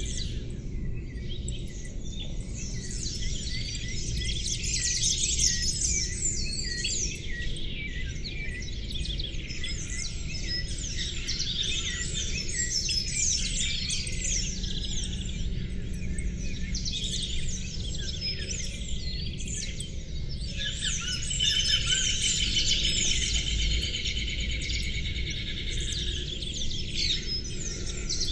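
A chorus of small songbirds chirping and singing, many overlapping short, high calls at once. About two-thirds of the way through, a rapid trill joins for a few seconds. A steady low rumble runs beneath.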